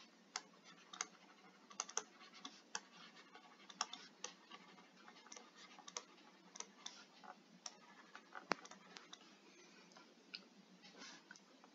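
Faint, irregular clicks and taps of a stylus pen on a tablet screen during handwriting, a few a second, with one sharper click about eight and a half seconds in.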